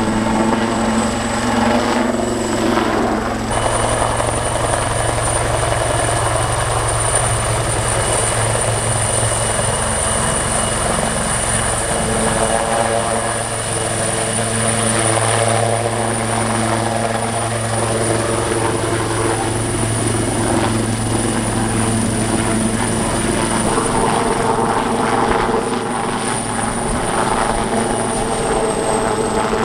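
Military helicopter running close by: a steady, loud rotor and engine sound with a high turbine whine that steps up in pitch a few seconds in and falls back near the end.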